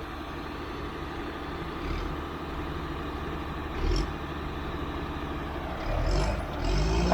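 Heavy-equipment diesel engine running steadily at low revs, with brief surges about two and four seconds in and the engine pulling harder near the end.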